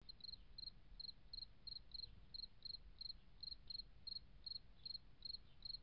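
Faint chirping of a cricket: short high chirps repeating at a steady rate of about two to three a second, over a low hum.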